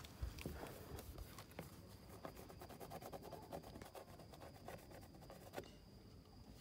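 Faint scratching and clicking of handling close to the microphone, densest in the middle, over a faint steady high-pitched tone.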